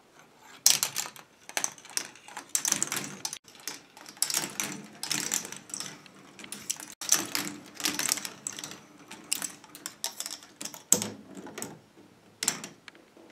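K'nex ball machine running: plastic balls clattering and rattling through plastic rod-and-connector tracks and lifts, a fast, irregular run of clicks and knocks.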